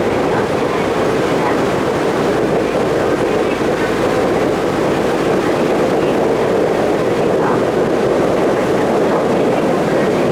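Ferry under way: a steady drone of the engine mixed with rushing water and wind, with no change in level.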